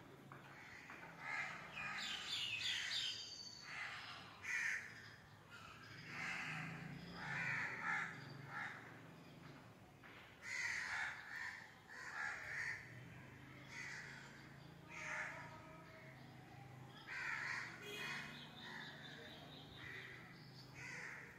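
Crows cawing again and again in short harsh calls, over a low steady hum.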